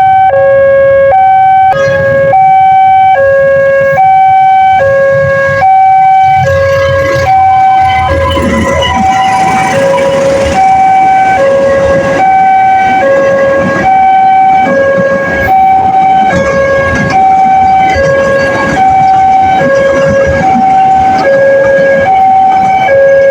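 Railway level-crossing warning siren of the new Daop 2 Bandung type, sounding a steady two-tone hi-lo alternation with each tone held about half a second. This is the warning that the crossing is closing for an approaching train. Road traffic rumbles underneath.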